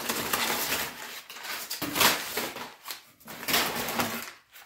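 Crumpled brown kraft paper packing filler crinkling and rustling in uneven bursts as it is pulled out of a cardboard box by hand.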